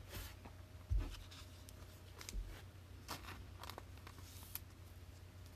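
Trading card handled and slid against a clear plastic sleeve: faint scratchy rustles and light clicks, with a soft low thump about a second in.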